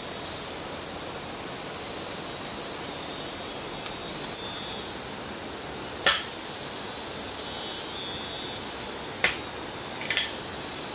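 Rainforest ambience: a steady high chorus of insects, with two sharp snaps of brush underfoot, about six and nine seconds in, as a person moves through the undergrowth.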